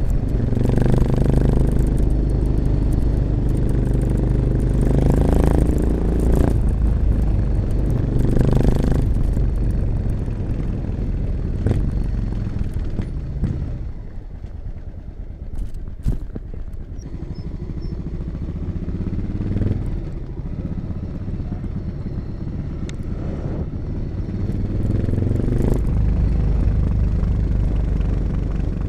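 1986 Honda XL600RM's single-cylinder four-stroke engine running through an XRacing exhaust with dB killer, its revs repeatedly rising and falling under throttle. About halfway through it drops to a quieter, lower run with a couple of sharp knocks, then pulls harder again near the end.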